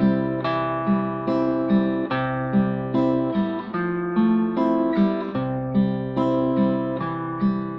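Acoustic guitar fingerpicked in a slow arpeggio, without barre chords. Single plucked notes come about two a second and ring over a held bass note, which changes a few times as the chords move from C into the verse progression.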